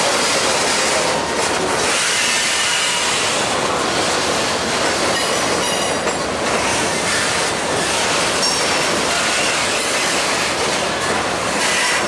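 Freight train rolling past: steady noise of cars running over the rails, with high-pitched wheel squeal coming and going.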